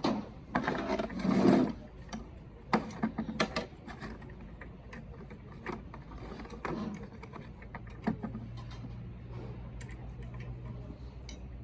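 Scattered metal clicks and knocks of hand tools and engine parts being handled during an engine rebuild. A faint steady hum comes in about eight seconds in.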